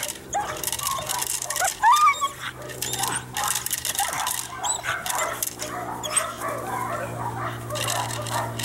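Belgian Malinois on a leash barking and whining repeatedly as she lunges at an agitator, with short high yelps scattered through.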